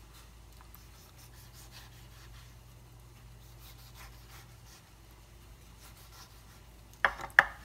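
Chef's knife slicing through a tomato on a bamboo cutting board: soft, faint cuts, then two sharp knocks of the blade on the board near the end.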